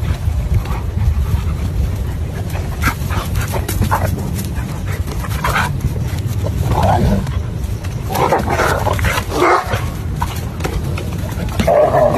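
A dog barking a few short times, mostly in the second half, over a steady low rumble.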